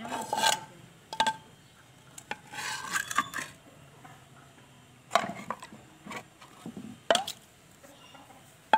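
Handling noises: about five sharp taps and clicks spread out, with short stretches of scraping and rustling between them.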